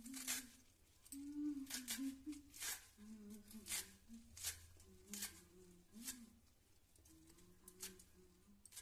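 A person softly humming a wavering tune in short phrases, with sharp clicks and taps at irregular intervals, about one a second.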